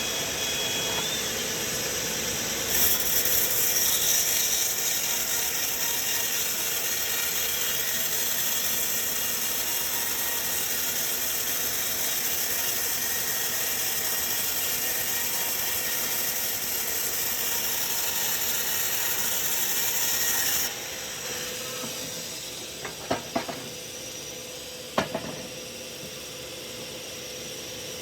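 Sawmill saw cutting through a log: a steady, bright, high-pitched noise over the machine's running sound starts about three seconds in and cuts off sharply about twenty seconds in. A few sharp knocks follow near the end.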